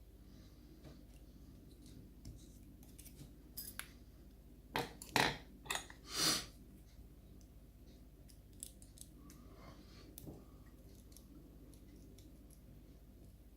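Small metal clicks and taps of lock pins and springs being handled and laid out from a gutted pin-tumbler lock, with a few louder scrapes about five to six and a half seconds in.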